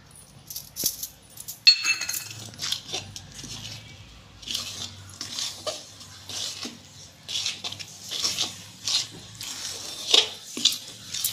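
Steel spoon scraping and clinking against a steel kadhai in irregular strokes while milk powder is stirred into a thick mango-pulp mixture. There is one sharper, ringing clink a little under two seconds in.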